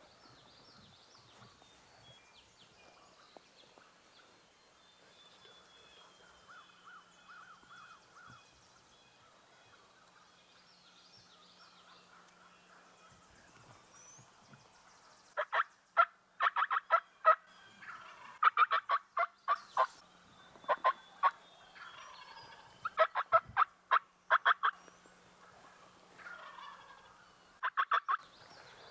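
Turkey yelping in several loud runs of rapid, evenly spaced notes, starting about halfway through. Faint songbird calls come before it.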